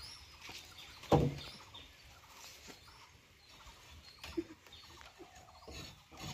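Knife blade scraping over a slaughtered pig's skin in short strokes, with small birds chirping in the background. A short, loud, low sound comes about a second in.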